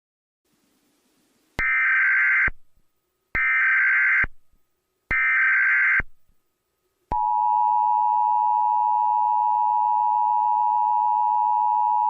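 Emergency Alert System SAME header: three short bursts of data tones, about a second long and evenly spaced. About seven seconds in they give way to the steady two-tone EAS attention signal.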